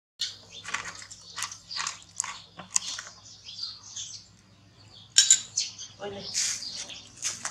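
Baby monkey squealing in a rapid run of short, high-pitched cries, loudest about five seconds in.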